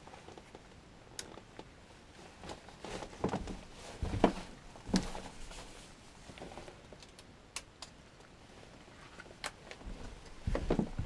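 Scattered knocks, clicks and scuffs of people moving about and handling things in a small, bare room, with two louder thumps about four and five seconds in and a burst of knocks near the end.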